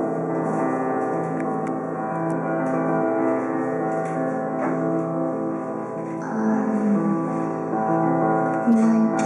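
Grand piano played slowly: sustained chords left ringing and overlapping, growing somewhat louder in the last few seconds.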